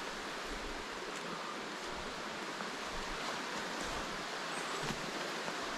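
Steady outdoor background hiss in hardwood forest, with a few faint ticks from footsteps or twigs on the leaf litter.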